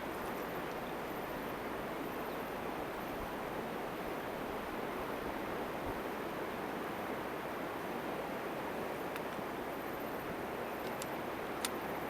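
Steady rushing noise without any pitch, with a few faint ticks near the end.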